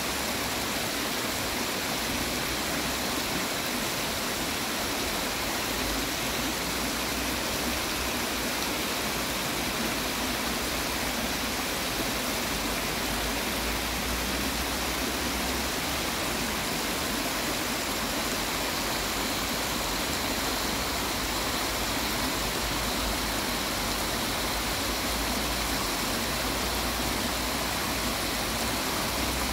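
Shallow stream running over rocks and around stepping stones: a steady rush of water, with a low rumble coming and going underneath.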